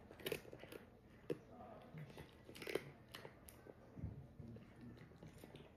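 A cat crunching dry kibble from a ceramic bowl: faint, irregular crunches and sharp clicks as it chews.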